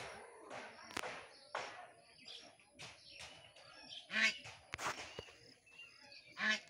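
Footsteps, roughly one every half second, and two loud honking bird calls, one about four seconds in and one near the end.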